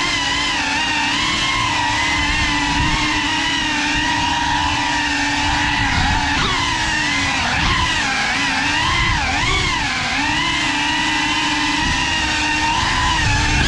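Cinelog35 cinewhoop FPV quadcopter's motors and propellers whining steadily, the pitch gliding up and down as the throttle changes through the turns.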